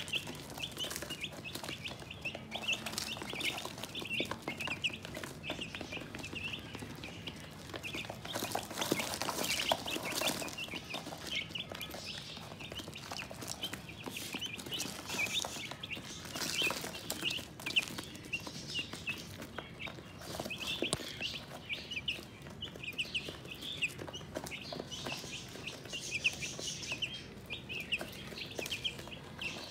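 A flock of young broiler chicks peeping continuously, many short high chirps overlapping one another, with scattered short clicks of beaks pecking grain feed from a plastic feeder tray.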